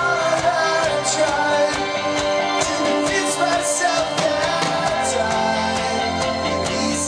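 Rock band playing a song, a singer's voice over guitars and a steady drum beat.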